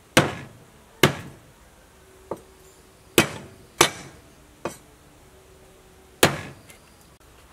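A heavy cleaver chopping down onto a wooden chopping board: seven sharp chops at an uneven pace, two of them lighter, some followed by a faint ring.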